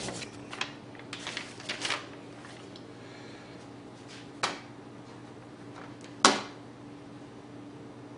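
Scattered handling noises: a quick run of rustles and clicks in the first two seconds, a single click at about four and a half seconds, and a louder sharp knock past six seconds, over a steady low hum.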